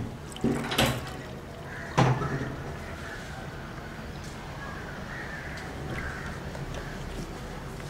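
Watery red-soil mud slurry poured from a plastic container into a cloth strainer, with a soft steady splashing. There are a few sharp knocks near the start and one about two seconds in.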